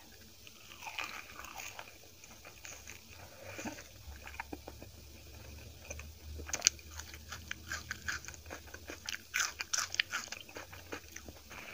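Close-miked eating: a person chewing and biting into poori and curry, with crisp crunches and wet mouth clicks that grow denser and louder in the second half.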